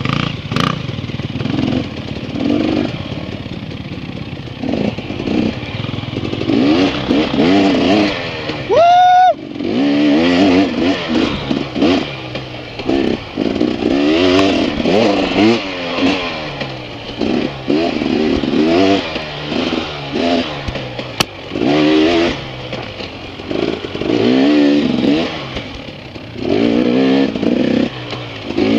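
Dirt bike engine revving up and down under throttle on a trail ride, its pitch climbing and falling every second or two. About nine seconds in it gives one sharp climb in pitch.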